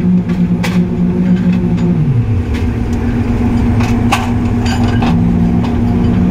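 Slipform concrete paving machine running during pavement-quality concrete paving: a steady, loud mechanical hum with a tone that drops in pitch about two seconds in. Scattered sharp metallic knocks and clanks are heard over the hum.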